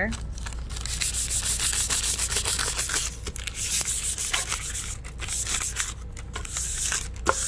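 Sheet of plain paper rubbed briskly back and forth over a dry acrylic-painted board, a scratchy hiss in quick strokes with a few brief pauses in the later seconds. The paper is used in place of sandpaper to knock down the raised fuzz in the paint.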